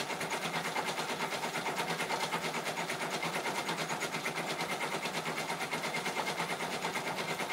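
Multi-needle embroidery machine running, stitching out a design with a rapid, even rhythm of needle strokes.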